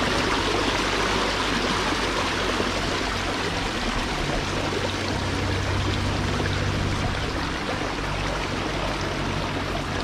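Rain-swollen water running steadily out of an overflowing farm pond along a channel: a continuous, even rushing of water.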